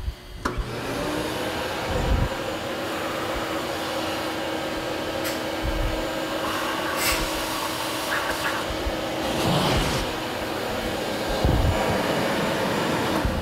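Shop vacuum running, its hose sucking up metal chips left by cutting the valve seats in a cylinder head; a steady rushing noise with a hum.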